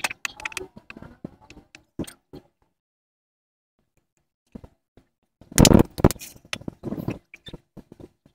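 Hand work on a motorcycle seat base and its foam: scattered light knocks and clicks, then a louder rough scrape lasting under a second about five and a half seconds in, followed by a few more knocks.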